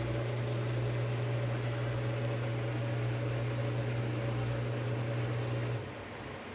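Toshiba TWD-BJ130M4G washing machine spinning with a severe rubbing noise over a steady low hum. The hum drops away shortly before the end. The owner takes the noise for a failed internal shock absorber.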